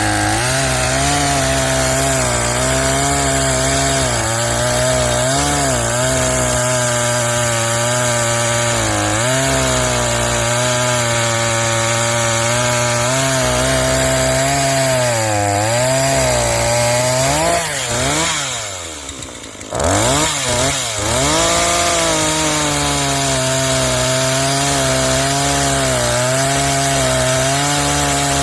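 NEO-TEC NH 841 40 cc two-stroke chainsaw running at high revs while cutting a large log, its pitch sagging and recovering under load; about eighteen seconds in the revs fall away briefly, then climb back up. The saw has just had its carburettor tuned.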